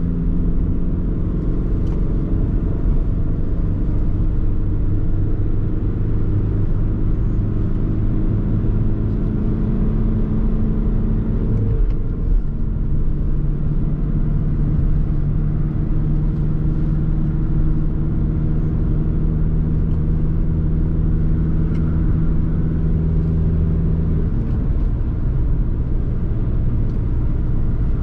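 Ford Tourneo Custom's 2.0 TDCi four-cylinder diesel engine pulling steadily while driving, with tyre and road rumble. The engine note changes pitch briefly about twelve seconds in and again a few seconds before the end.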